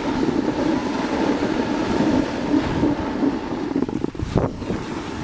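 Snowboard running over rough, crusty snow: a steady, rumbling scrape, with wind buffeting the microphone.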